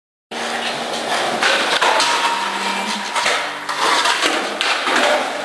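Skateboard rolling and clattering on a hard floor, with sharp knocks of the board.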